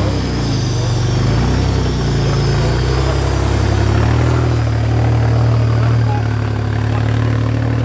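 Rock bouncer buggy's engine running loud and steady as the buggy crawls up a boulder step. Its note shifts about four seconds in and then holds.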